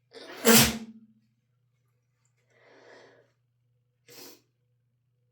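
One loud, forceful human sneeze about half a second in, brought on by Chhinkni sneezing powder. It is followed by a fainter breath and then a short, sharp sniff near the end.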